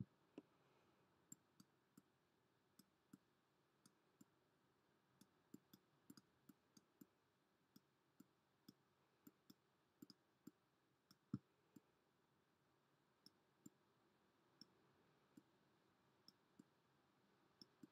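Near silence with faint, irregular clicks, roughly one or two a second, one louder a little past halfway: a pen stylus tapping and ticking on a drawing tablet during handwriting.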